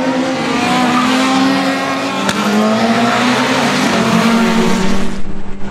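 Touring race car engines running hard as several cars pass at speed, with a sharp click about two seconds in.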